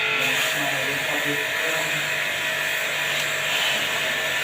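A small electric machine running steadily, with a strong even hiss.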